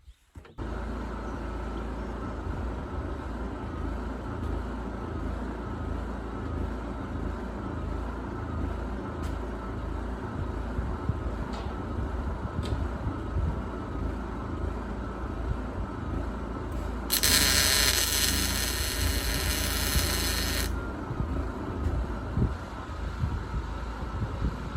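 An engine running steadily with a low rumble. About seventeen seconds in, a loud hiss lasts about three and a half seconds.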